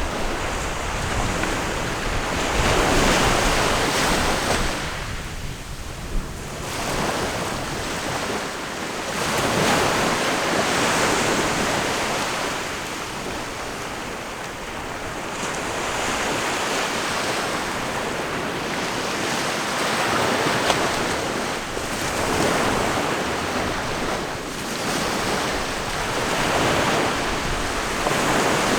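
Ocean surf: waves rolling in and breaking one after another, each one swelling up and washing back out over several seconds.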